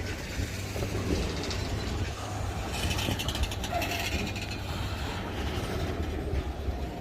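Freight train rolling past with a steady low rumble, and a run of rapid metallic clicking from the wheels and cars about three to four seconds in.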